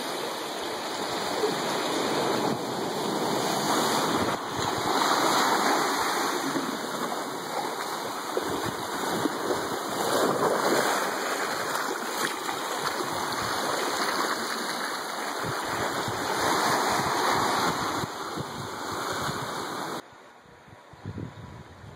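Small ocean waves washing in over sand and rocks, a steady rushing surf that swells and eases every few seconds. Near the end it drops suddenly to a much quieter, more distant wash of the sea.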